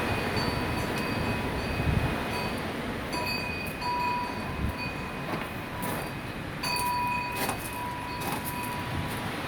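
Strong desert wind blowing in gusts, carrying a high whistle of several pitches that comes and goes, with a few brief rattles about six to eight seconds in.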